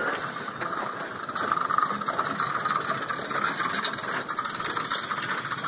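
Narrow-gauge steam train of wooden carriages rolling slowly past close by, its wheels and running gear giving a steady rattle and clicking on the track, with the locomotive Dolgoch coming alongside.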